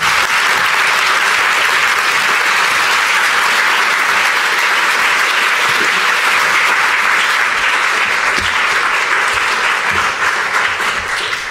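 Audience applause: a hall full of people clapping steadily, fading out near the end.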